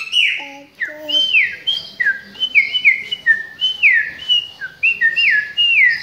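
Caged chopi blackbird (pássaro-preto) singing: a quick run of clear whistled notes, about three a second, most of them gliding down in pitch.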